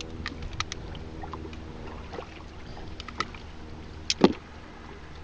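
Steady low hum of a boat's motor, with scattered small metallic clicks and knocks as pliers work the hook out of a bass's mouth; the sharpest knock comes about four seconds in.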